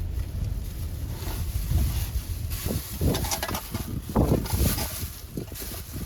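Wind rumbling on the microphone, with a run of irregular knocks and rustles starting about two and a half seconds in.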